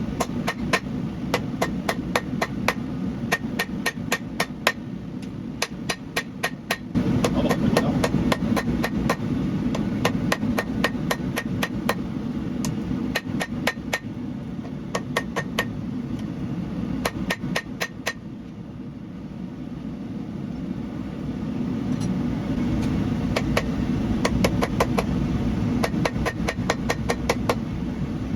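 Hand hammer striking a hot Damascus steel billet on an anvil in steady runs of a few blows a second, with a break of a few seconds past the middle. A steady low rumble continues underneath.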